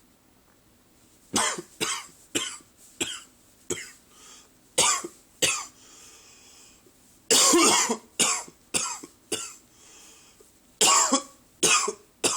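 A man's first-thing-in-the-morning cough: about fifteen short, sharp coughs in several runs, with fainter drawn-in breaths between the runs. The loudest, longest cough comes a little past the middle.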